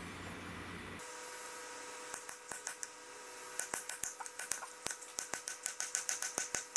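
A series of short, sharp taps, a few scattered at first and then coming quickly at about five a second, over a faint steady hum.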